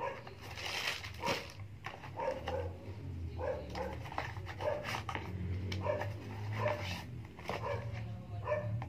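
A dog giving short, pitched calls that repeat about every half second to a second, over the clicks and knocks of a cardboard product box being opened and handled.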